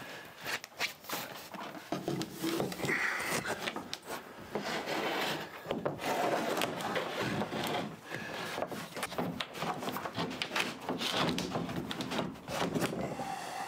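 A large home-built boat deck hatch lid being handled and set onto the bow deck, with repeated knocks and scraping rubs as it is shifted into place.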